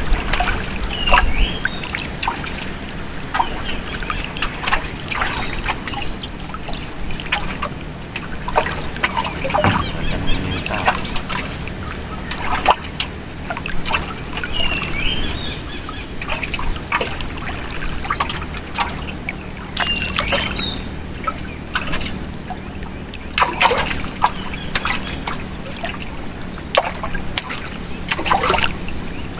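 Water splashing and trickling in irregular bursts, with a few short high chirps now and then.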